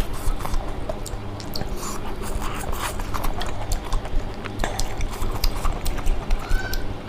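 Close-miked chewing of crunchy fried food, a rapid irregular run of crisp crunches and mouth clicks.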